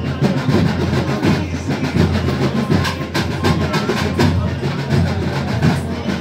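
Loud drum-led festival music, its percussion striking in a steady run of beats over the hubbub of a dense crowd.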